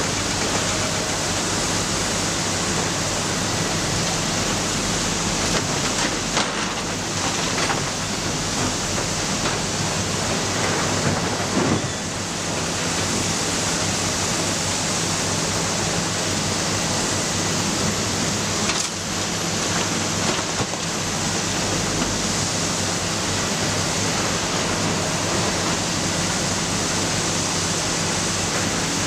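Matador ME315 excavator running steadily at work, a dense even noise with a low hum underneath. There are brief changes about seven, twelve and nineteen seconds in.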